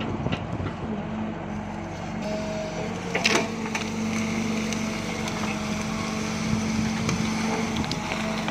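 Diesel engine of an S265 F2 crawler excavator running steadily under working load, with a hydraulic whine that comes and goes as the bucket digs. There is one sharp clank about three seconds in, and scattered small knocks as the bucket scrapes grass and soil.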